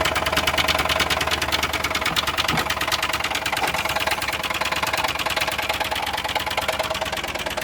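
Chevy HHR's four-cylinder engine idling with a fast, even ticking knock; the engine has a rod knock, though at idle it sounds pretty healthy.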